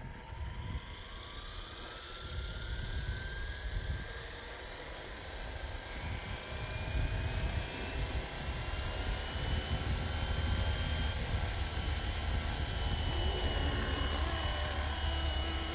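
RC helicopter's motor and two-bladed main rotor spooling up. A whine rises in pitch over the first several seconds, then holds steady at flying speed as the rotor whirr grows louder.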